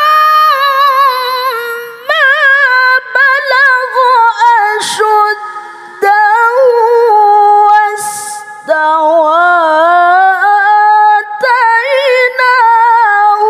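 A woman reciting the Quran in melodic tilawah style: long held, ornamented notes with quavering turns and slides in pitch, broken by a few short pauses for breath.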